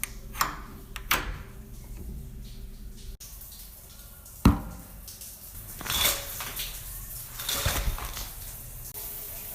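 A few sharp knocks and clunks, the loudest about four and a half seconds in, with short rushing swells of noise near six and eight seconds, in a small, echoing room.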